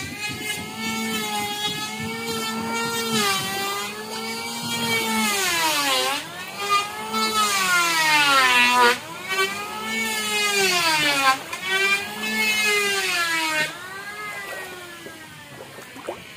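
Small ketinting longtail boat engine running at high revs with a whining note. Its pitch dips and climbs again several times, and the sound fades away over the last couple of seconds.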